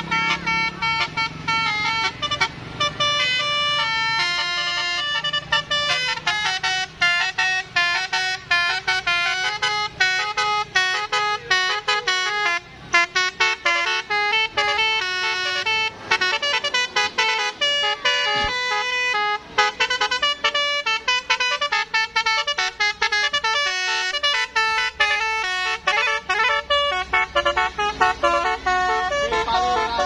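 Bus telolet horn, a Basuri multi-tone air horn with roof-mounted trumpets, playing a fast melody of short notes that change several times a second.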